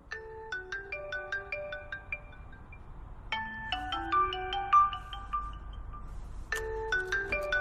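Phone ringing with a ringtone, a short tune of quick struck notes that starts over three times, about every three seconds.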